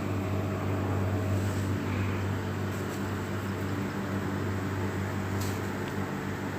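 A steady low machine hum with a hiss over it, holding an even level.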